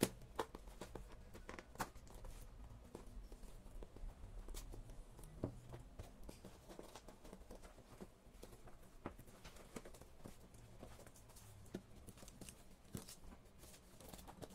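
Faint parcel handling: scissors snipping the jute twine tied around a taped cardboard box, then scattered taps and rustles as the box is turned over.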